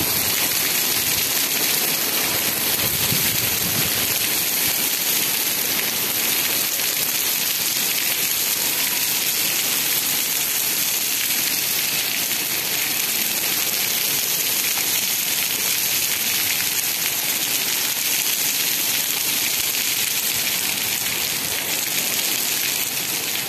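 Steady rain falling on a wet cobblestone street: an even hiss of drops on stone and puddles.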